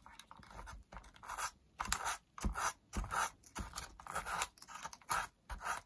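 Fine sandpaper, about 800 grit, rubbed back and forth over a cassette player's corroded metal battery contacts, a short scratchy stroke about twice a second: cleaning the battery corrosion and patina off the terminals.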